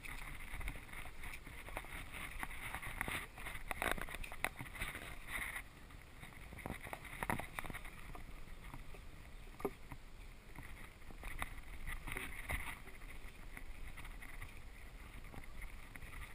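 Action-camera handling noise: muffled rubbing and scattered light knocks as the camera is held and moved about.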